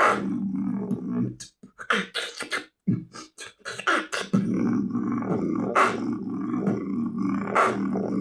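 Vocal beatboxing done with chewing gum in the mouth: a low, growling sustained bass tone under sharp snare-like hits, with a stretch of quick clicks and pops in the middle of the pattern.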